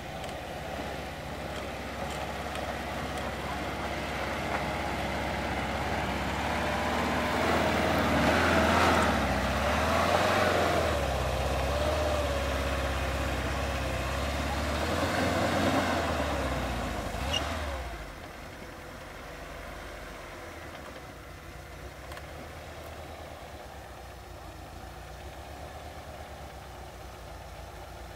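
Vehicle engine working under load off-road, its pitch rising and falling with the throttle, then dropping off about 18 seconds in to a quieter, steady running sound.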